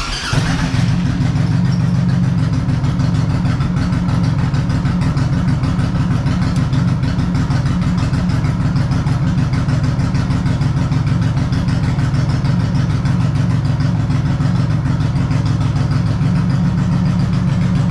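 Honda VTX1800C V-twin with Cobra slash-cut exhaust pipes fires up right at the start and settles into a loud, steady idle.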